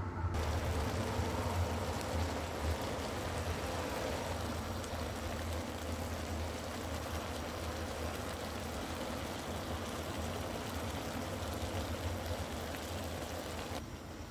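Steady rushing noise over a low hum, cutting in just after the start and stopping abruptly near the end.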